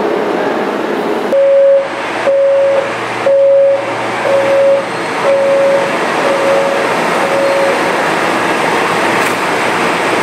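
Metro train door warning signal: seven steady electronic beeps, about one a second, the later ones a little fainter, over the steady rumble of a subway station.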